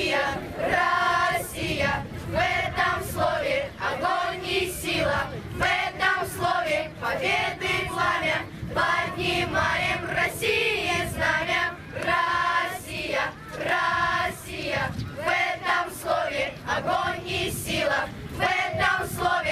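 A choir singing a song in continuous sung phrases.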